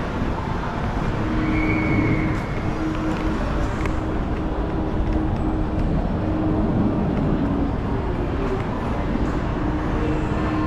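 Steady shopping-mall background noise while riding an escalator: a low rumble with a faint hum that comes and goes, from the escalator machinery and the building's air handling.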